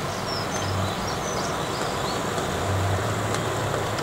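Rain falling, a steady hiss, with a low hum that swells twice underneath it.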